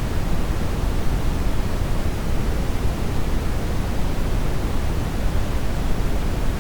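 Steady synthesized brown noise: an even, deep rushing hiss, heaviest in the bass and fading toward the treble, with no change in level.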